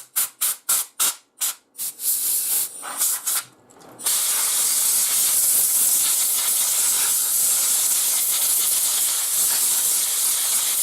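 Compressed-air blow gun blowing out a freshly alcohol-cleaned power-supply circuit board. It starts as a rapid series of short puffs, about three or four a second, then a few longer blasts, and from about four seconds in a steady continuous hiss of air.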